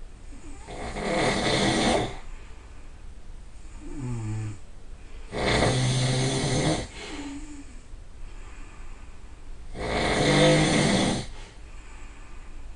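A person snoring loudly: three long snores about four to five seconds apart, with a short, softer pitched breath sound between the first two and just after the second.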